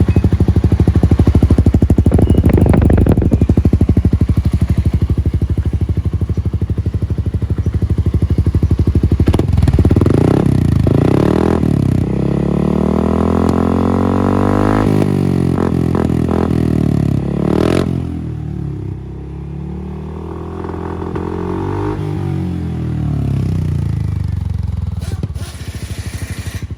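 Suzuki Burgman 400 single-cylinder scooter engine running loud through an aftermarket Yoshimura-style 17-inch slip-on exhaust with a Kevlar tip. It holds steady for about nine seconds, then the engine speed rises and falls several times as it is revved.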